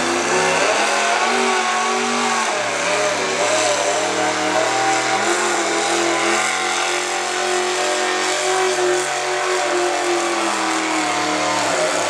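V8 engine of a hot rod pulling tractor running hard under heavy load as it drags the weight-transfer sled down the track. The revs stay high with the pitch wavering, and they ease down near the end.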